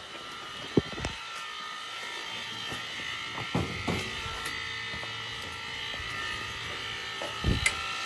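Hot-water heating circulator pumps humming steadily, louder toward the end as they are approached. They are running while the gas boiler is not firing, because its spill switch has tripped. A few short knocks from handling are heard.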